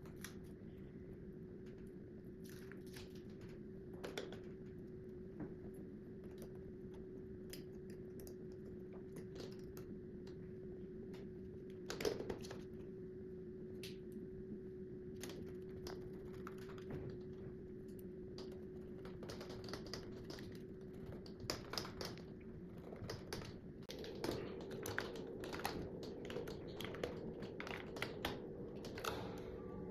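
Scattered light clicks and taps of smart-lock hardware being handled and fitted to a door during installation, coming more often in the second half, over a steady low hum.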